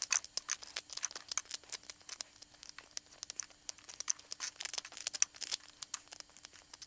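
Needle-nose pliers picking PLA support material out of a 3D-printed TPU shoe: a quick, irregular run of small sharp clicks and crackles as the brittle supports snap and break away.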